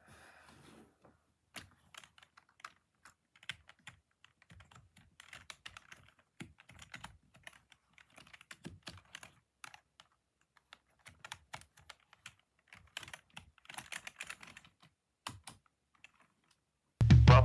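Typing on a computer keyboard: quick, irregular key clicks in bursts with short pauses. Loud music comes in abruptly near the end.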